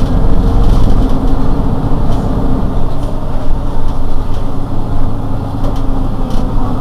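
Mercedes-Benz Citaro G C2 articulated city bus's diesel engine idling steadily at the rear while the bus stands at a stop, a loud, low rumble with a steady hum over it.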